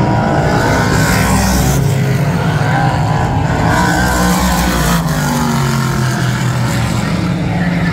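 Several race car engines running hard at once, their pitches rising and falling against each other as the cars race around the oval.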